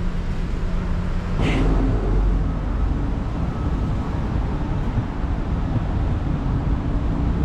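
City street traffic: a steady low rumble of car engines and tyres, with a brief hiss about a second and a half in.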